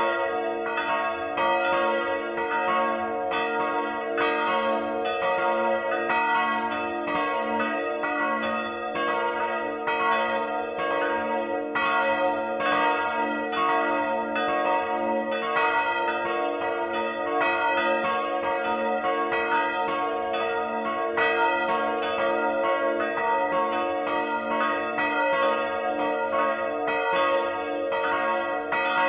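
The bells of a three-bell church peal ringing together, heard close up inside the belfry. Two were cast by Rincker in 1952, one with strike note A, and one by Johann Peter Bach in 1759, with strike note C-sharp. The swinging bells give overlapping clapper strikes, several a second, over a steady ringing hum.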